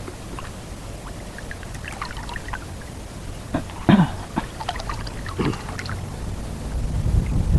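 Water splashing and trickling in small irregular bursts around a wading angler, with a sharper splash about four seconds in and a low rumble near the end.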